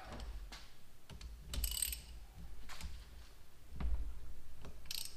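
Hand ratchet wrench clicking and metal clinking as it tries to back out a broken exhaust manifold stud by a nut welded onto it on a VW 1.8L turbo cylinder head.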